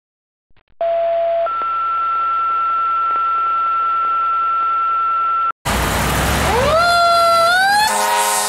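Two-tone fire dispatch page: a short lower tone, then a long steady higher tone that cuts off suddenly. It is followed by the fire engine's Federal Q2B mechanical siren winding up, its pitch rising quickly and then climbing slowly. Near the end a steady horn blast starts.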